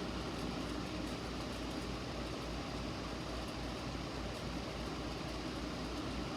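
Steady hum and hiss of background noise, with faint ticks about once a second from a fire-alarm strobe flashing with its horn and speaker silent.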